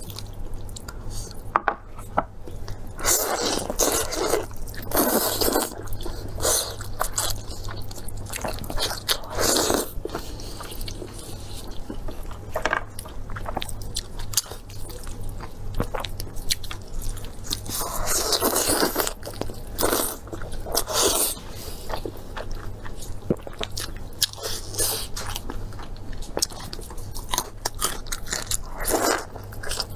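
A person eating close to the microphone: repeated crunchy bites and chewing at an irregular pace, over a steady low hum.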